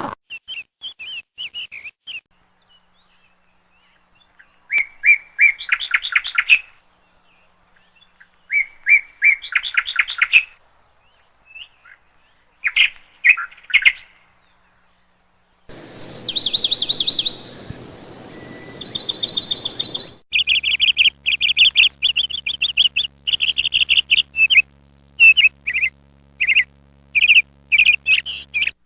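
Small birds chirping and singing in short, rapid trilled phrases with pauses between them. The background changes abruptly twice in the second half, where separate recordings are joined, and the chirps come thicker near the end.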